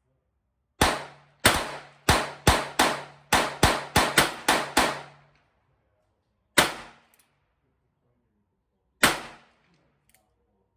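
Gunshots: a fast string of about eleven shots over four seconds, then two single shots a couple of seconds apart.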